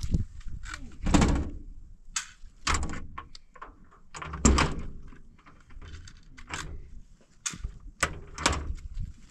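A door being knocked and worked at by hand: a string of irregular knocks and thuds, loudest about a second in and again at about four and a half seconds.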